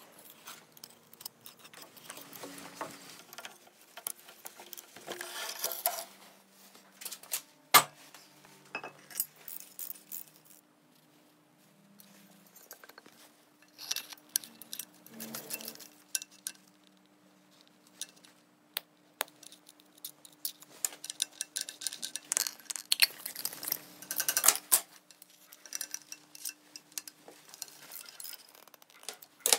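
Small steel machine parts being handled during reassembly: scattered clinks, taps and short scrapes of metal on metal, with one sharp click about a quarter of the way through.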